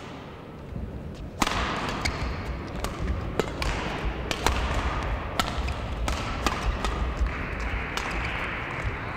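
Badminton rally: sharp, irregular strikes of rackets on the shuttlecock, about a dozen, starting about one and a half seconds in, with players' footfalls on the court and steady hall noise beneath.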